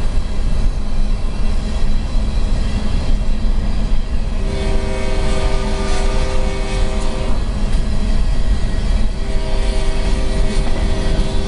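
CSX freight locomotive's air horn sounding two long blasts, each a chord of several steady notes, the first about four and a half seconds in and the second about nine seconds in. Under it runs the steady low rumble of road and tyre noise heard from inside a car driving alongside the train.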